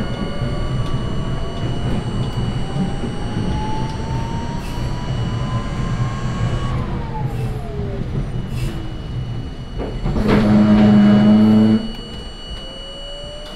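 R32 subway train running on track: a steady rumble of wheels on rail, with a motor whine that rises in pitch for about the first seven seconds and then falls away as the train slows. About ten seconds in, a loud, low, steady tone sounds for about two seconds, and then the running noise drops off.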